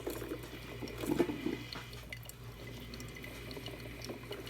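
Philips drip coffee maker brewing: water boiling hard and gurgling as it is pushed up to the filter, with a louder gurgle about a second in over a low steady hum.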